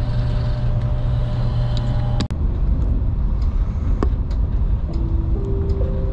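Steady running noise inside a JR Kyushu 787 series electric train car, a continuous rumble and hum. It cuts out for a moment a little over two seconds in, then carries on.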